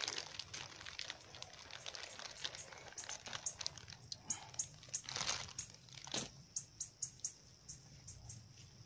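A plastic snack bag crinkling as it is handled, with two louder rustles about five and six seconds in. Short high chirps repeat about twice a second through the second half.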